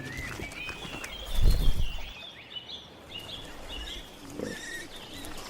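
Wild boar giving a low grunt about a second and a half in, over many short, chirping bird calls.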